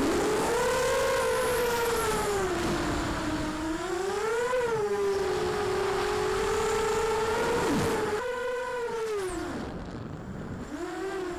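AKASO F250A racing quadcopter's brushless motors and propellers whining, picked up by the onboard camera, the pitch gliding up and down with the throttle over a rush of air. The whine swells higher about four and a half seconds in. After about eight seconds it drops in pitch and grows quieter, then dips and picks up again near the end.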